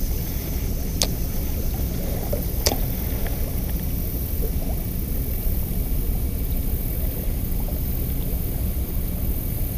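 Steady low rushing of flowing river water, with two sharp clicks about one and three seconds in.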